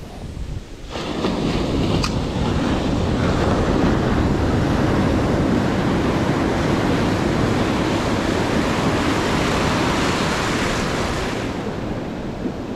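Ocean surf breaking and washing in as foam through shallow water, mixed with wind buffeting the microphone. The rush swells about a second in, stays loud through the middle, and eases slightly near the end.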